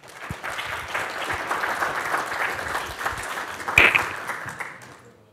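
Audience applauding. The clapping starts at once and dies away over about five seconds, with one sharp knock about four seconds in.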